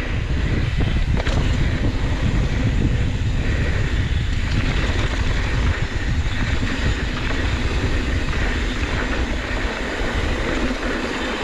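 Downhill mountain bike descending a dirt trail at speed: a steady, loud rush of wind on the microphone over tyre rumble.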